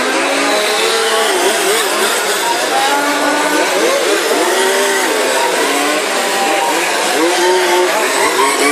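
Several large-scale RC Formula 1 cars with small petrol two-stroke engines racing at once. Their overlapping engine notes rise and fall as each car accelerates and lifts off through the corners.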